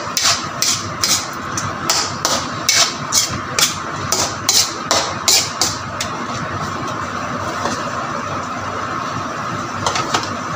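A cooking utensil is scraping and knocking against a wok as chicken pieces are stirred through tomato sauce, about two to three strokes a second. About six seconds in, the strokes stop and the sauce sizzles steadily, with a couple more knocks near the end.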